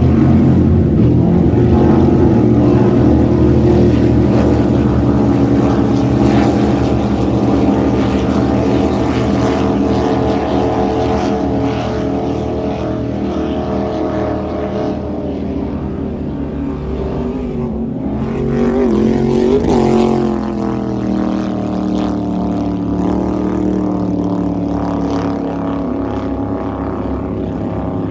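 Engines of offshore racing powerboats running flat out, a loud steady drone of several engine notes. About two-thirds of the way through it swells and its pitch bends down, then settles again.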